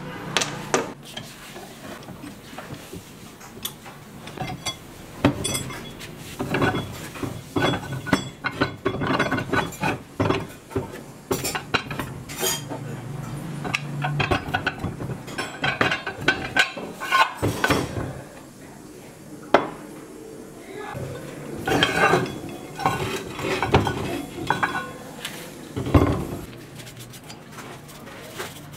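Old vise's metal parts clanking and clinking as it is taken apart and handled on a wooden board and workbench: irregular knocks of heavy iron pieces, with small rattles of nuts and the screw.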